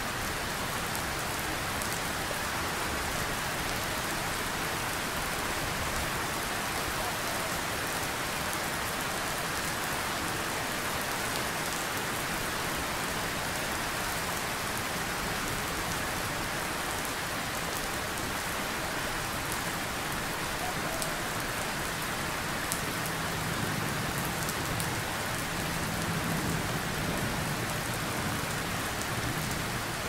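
Steady rain falling, an even hiss of drops, with a low distant thunder rumble that swells in about halfway through and fades near the end.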